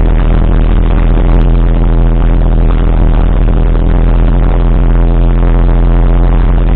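Light aircraft's piston engine and propeller droning steadily in the cockpit, with the throttle closed for a simulated engine failure.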